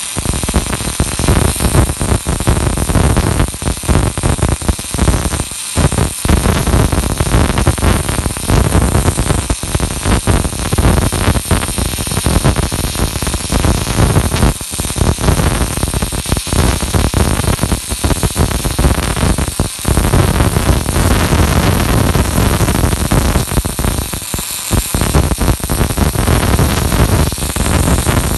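MIG welding arc crackling and sputtering steadily as a rotary welding machine lays a circular seam on a turning round part. It cuts out for a moment a few times.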